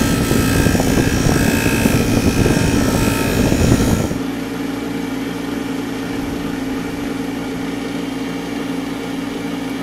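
Hard felt buffing wheel, charged with green honing compound and driven by an old furnace blower motor, polishing the flat back of a steel plane iron: a loud steady rush for about four seconds. The blade then comes off the wheel and the motor and wheel run on with a quieter steady hum.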